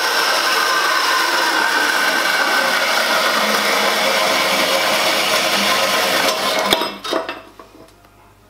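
Portable metal-cutting bandsaw running through stainless steel tube on an angled cut, a steady rasping with a thin ringing whine from the blade. The cut ends and the saw stops about seven seconds in with a couple of clunks.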